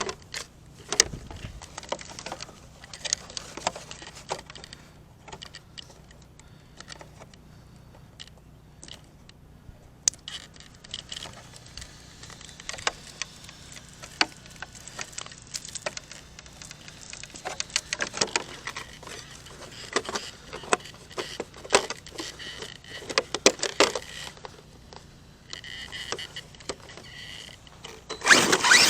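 ARRMA Kraton 6S RC monster truck running on dirt: irregular clattering, rattling and sharp knocks from the truck's chassis and tyres hitting the ground and loose gravel, with a loud burst right at the end.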